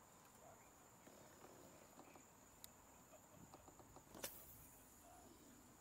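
Faint outdoor quiet with a steady high-pitched insect drone, typical of a late-summer cricket chorus. A few light ticks and one sharper click about four seconds in stand out from it.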